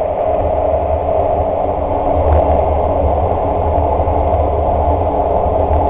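Steady rumble and roar of a train running at speed through a long rail tunnel, heard from inside the carriage, with a faint thin high whine held over it.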